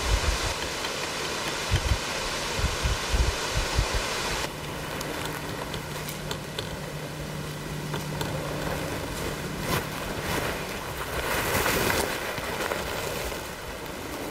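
Wind buffeting the microphone in irregular low thumps. About four and a half seconds in, this gives way to quieter woodland background noise with a faint steady low hum and a brief swell of noise near the end.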